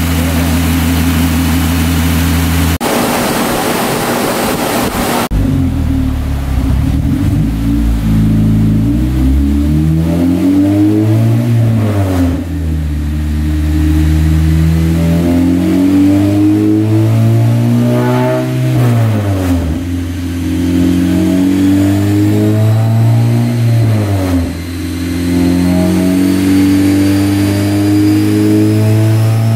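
Honda Civic Si's 2.4-litre four-cylinder running on a chassis dyno under tuning. It is held at a steady speed for a few seconds, then revs up and drops back again about four times, each rise climbing in pitch over several seconds.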